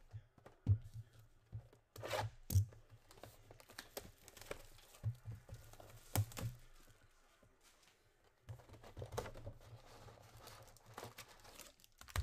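Plastic shrink wrap being torn and crinkled off a sealed trading-card box, in several bursts of crackling with sharp snaps and taps as the box is handled.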